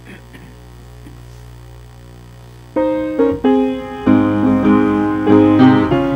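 Piano comes in about three seconds in, playing struck chords that ring and fade, after a stretch of low room sound.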